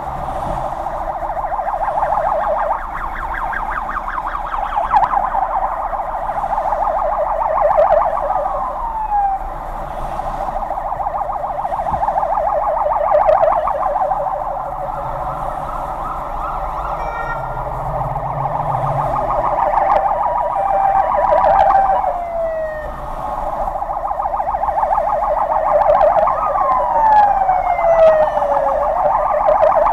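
Police vans' sirens sounding together in a fast warbling yelp, with a few long falling sweeps as the sirens change pattern or wind down, over a low engine hum.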